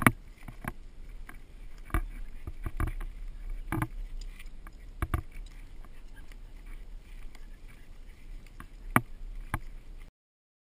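Walking sounds on a wooded dirt trail: irregular muffled knocks, clicks and rustling from footsteps and a dog on a leash, over a low steady rumble. The sound stops abruptly near the end.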